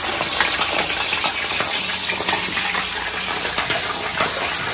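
Chicken freshly lowered into hot deep-frying oil, sizzling and crackling hard with dense bubbling.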